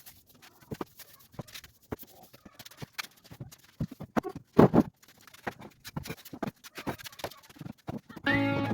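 Sweeping under a dining table: irregular taps, knocks and scrapes of a broom and of furniture being shifted, with a louder knock about halfway through. Guitar music comes in near the end.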